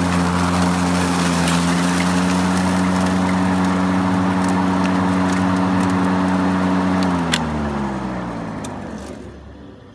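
Homemade electric lawn mower's 2 HP, 120-volt induction motor and belt-driven blade running with a steady hum. About seven seconds in there is a click, and the pitch then falls as the motor and blade spin down after switch-off.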